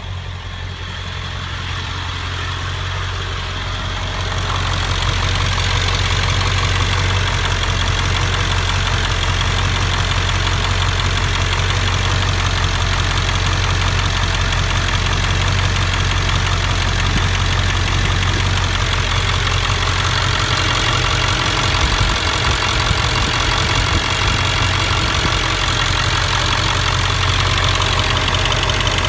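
7.3-litre V8 engine idling steadily with a slight tick in its running, a tick that appeared after a new injector was fitted. It grows louder over the first few seconds, then holds even.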